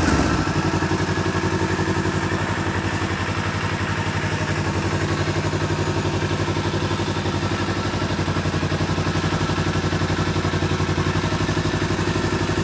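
Kawasaki Z300 motorcycle's parallel-twin engine idling steadily, settling right at the start as a rev dies away.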